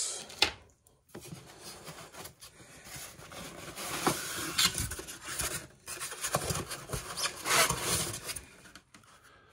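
Foam packing insert rubbing and scraping against the inside of a cardboard box as it is worked out, starting about a second in and loudest in the second half.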